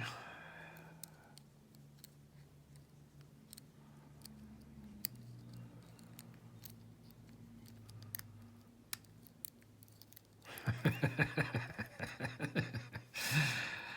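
Lock pick and tension wrench working the pins of a Skillman lock cylinder: scattered faint clicks for about ten seconds, then a fast run of clicking and rattling near the end as the pins are worked and the cylinder gives way.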